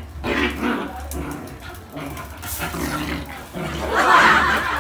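A dog and a puppy play-fighting, with repeated rough growls and a louder outburst of growling near the end.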